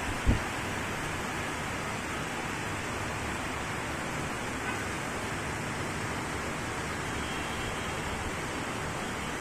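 Steady hiss of rain falling, with one short low thump just after the start.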